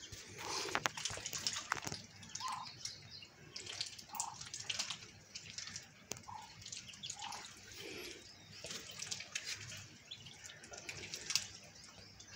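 Ducklings paddling and dabbling in a shallow muddy puddle: irregular small water splashes and drips.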